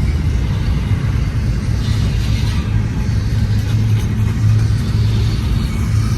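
Long double-stack freight train rolling by with a steady low rumble, its diesel locomotives pulling under power as it picks up speed.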